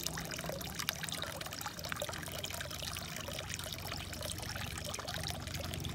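Water trickling from a hollowed log spout into a stone basin, a steady splashing with many small drips, over a low steady rumble.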